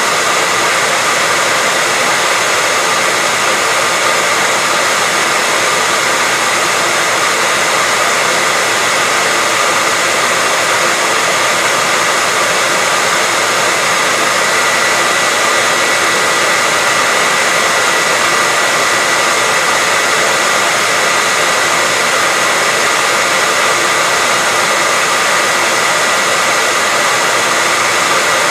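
Hair dryer running continuously at a steady speed: an even, unchanging rush of air with a constant whine from the motor.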